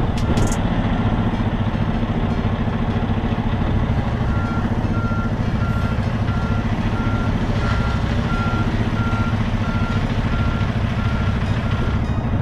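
Semi-truck diesel engine running low and steady while the rig backs up, with a reverse alarm beeping evenly, about one and a half beeps a second, clearer from about four seconds in.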